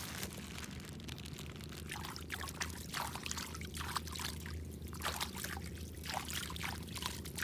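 Shallow ditch water trickling, with small irregular splashes.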